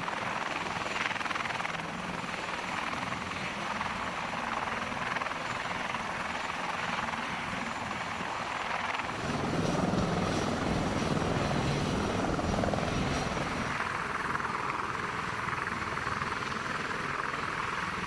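Steady aircraft engine noise, with more low sound coming in about nine seconds in.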